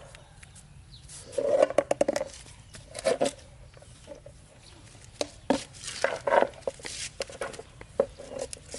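Hungry baby macaque giving short, rattling cries in about half a dozen bursts, the longest near the start, as it is fed from a bottle.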